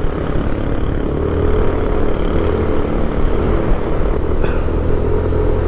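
Motorcycle engine running steadily at cruising speed while riding, with wind rushing over the rider's microphone.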